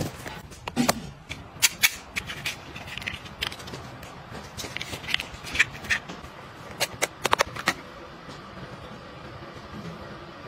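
Small plastic toiletry items and a clear plastic toiletry bag being handled while packing: a run of sharp clicks and taps, with several in quick succession about seven seconds in, then quieter near the end.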